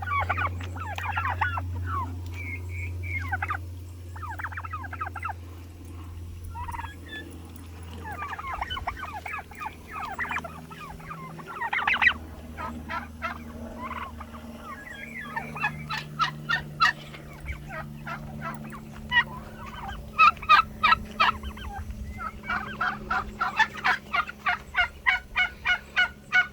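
Turkeys calling and gobbling. Bouts of rapid rattling notes grow louder and more frequent in the second half, over a steady low hum.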